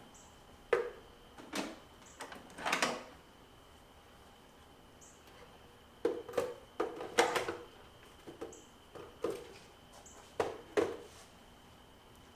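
Handling noises: a dozen or so short knocks, clicks and rustles of hard plastic and packaging, in clusters near the start and through the middle, over a faint steady high whine.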